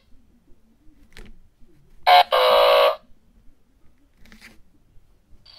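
Electronic sound-effects box playing a buzzer-like effect: a short blip, then one held tone of under a second, about two seconds in. Faint clicks come around a second in and again near the end.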